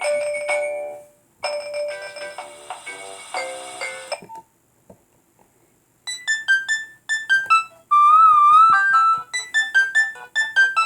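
Nokia 1600 polyphonic ringtones played through the phone's small speaker: one short synthesized melody ends, a second plays for a few seconds and stops, and after a pause with a few faint clicks a different tune begins about six seconds in, with a wavering held note.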